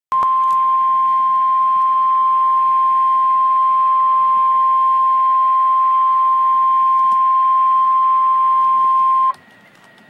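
Emergency alert attention tone for a severe thunderstorm warning. It is a single loud, steady beep at about 1 kHz, held for about nine seconds over faint hiss, and it cuts off suddenly near the end. A single tone like this is the National Weather Service 1050 Hz warning alarm tone of NOAA Weather Radio.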